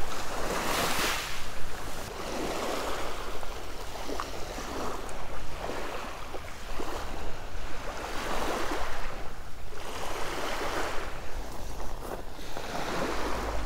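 Small waves washing up on a shelly beach, surging every two to three seconds, with a steady low wind rumble on the microphone.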